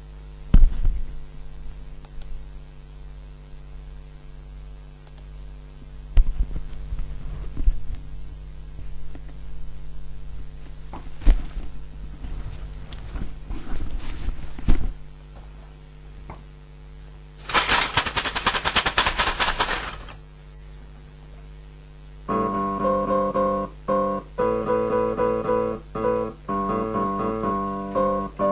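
Experimental electronic keyboard improvisation: a steady low drone under scattered clicks and knocks, then a dense burst of rapid rattling clicks lasting a couple of seconds. About two thirds of the way in, a run of repeated pitched keyboard notes starts.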